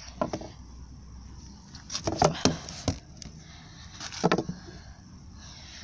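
Handling sounds on a wooden tabletop: a few sharp knocks and clicks at the start, a quick cluster of them about two seconds in, and another knock a little after four seconds, as tomatoes and a kitchen knife are moved about.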